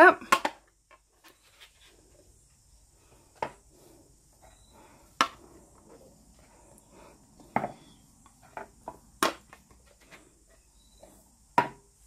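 About half a dozen scattered knocks and taps, with faint scuffing between them, as paint cups are flipped over onto vinyl records and set down on a tabletop for flip-cup acrylic pours.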